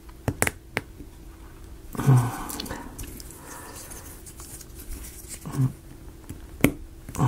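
Light clicks and taps of small plywood model-kit pieces being handled and fitted together, with a sharp click near the end. Two short, low murmurs are heard along with them, about two seconds in and again past five seconds.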